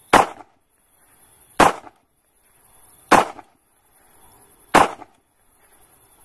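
Outro sound effect: four sharp bangs about a second and a half apart, each led in by a short rising whoosh.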